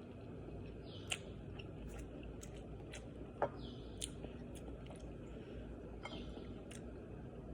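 A person chewing and eating, with scattered small mouth clicks and smacks, the sharpest about three and a half seconds in. A short, high, falling call repeats every two to three seconds behind it.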